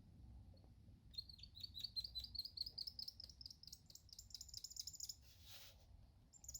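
Felt-tip marker squeaking across a clear acrylic lens blank, a quick run of short high squeaks, about five a second, for about four seconds. A brief rustle follows near the end.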